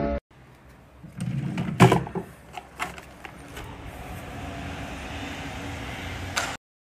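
Street ambience heard from a high balcony: a steady low traffic hum under an even hiss, with several sharp knocks and clicks of handling on the balcony railing, the loudest about two seconds in. The sound cuts off abruptly near the end.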